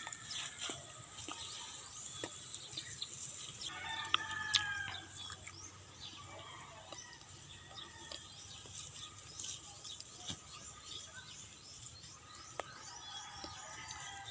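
Farm ambience: many small bird chirps throughout, with a short animal call about four seconds in and another near the end.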